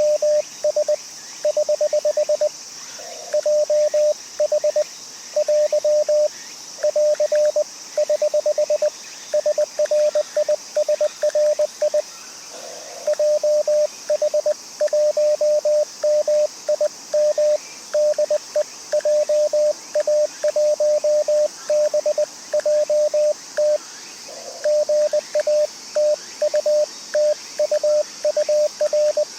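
Morse code (CW) from an amateur radio transceiver: a single steady tone, fairly high in pitch, keyed on and off in short and long elements with brief gaps between characters.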